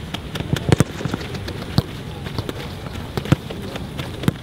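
Footballs being kicked in a passing drill on a grass pitch: a series of sharp thuds at irregular intervals. The loudest comes under a second in, with clear ones again near two seconds and just past three.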